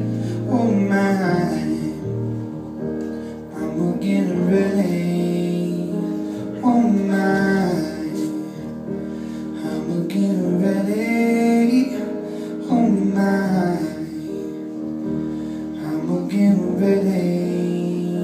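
Live band performance: a singer's long sung phrases, bending in pitch, over piano and guitar accompaniment.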